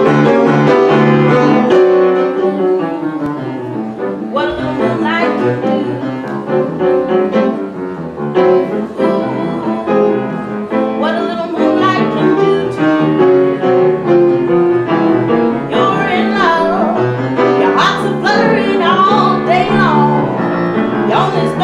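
A woman singing a slow song to piano accompaniment, her voice wavering and most prominent in the last few seconds.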